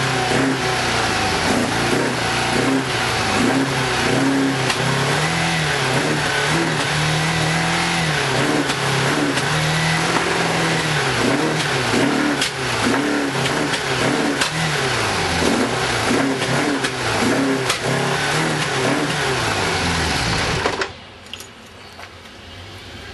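Kawasaki GPZ600R's inline four-cylinder engine running with its revs rising and falling, misfiring on three cylinders with the fourth only trying to fire, then cutting out near the end.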